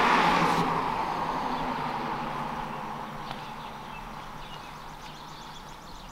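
A road vehicle passing by, its tyre and engine noise loudest at the start and fading away over several seconds.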